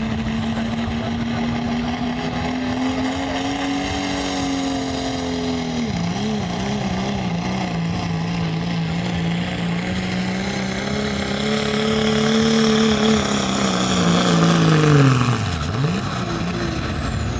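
Turbocharged diesel pickup engine held at high revs under full load while pulling a weighted sled. The pitch wavers about six seconds in and swells louder past the middle, then drops away sharply near the end as the truck comes off the throttle. A high whistle falls in pitch as the revs come down.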